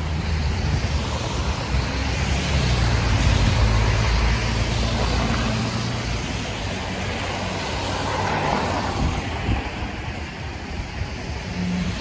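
Street traffic: a motor vehicle's low engine rumble, strongest in the first half and easing after, over a steady road hiss.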